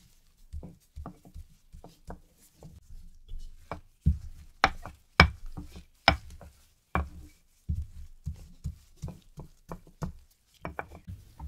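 Wooden rolling pin rolling out whole wheat dough on a mat: a run of irregular soft knocks and taps as the pin is set down and pushed over the dough, loudest a few seconds in.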